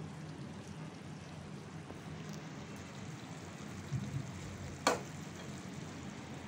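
Faint sizzle of chicken in thick yogurt masala in a hot nonstick kadai as a spatula stirs it, with one sharp click about five seconds in.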